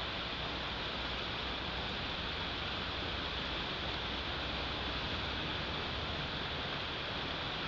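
Steady, even hiss of wind and snowstorm noise on an outdoor nest camera's microphone, with no calls or knocks.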